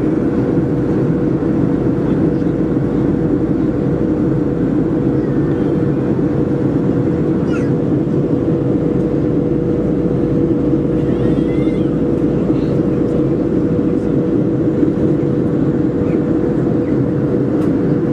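Steady cabin noise inside a Boeing 737-400 in flight: the rush of airflow and the drone of its CFM56-3 turbofan engines, with a steady hum running through it, as the jet begins its descent.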